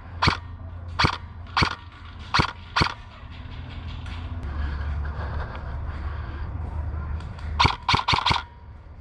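Airsoft gun firing single shots: five sharp cracks about half a second to a second apart, then a quick string of four near the end, over a low steady rumble.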